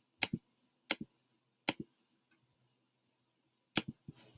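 Computer mouse clicking: five sharp clicks, each a quick press-and-release double tick. Three come about once every 0.7 s, then after a pause two more come close together near the end.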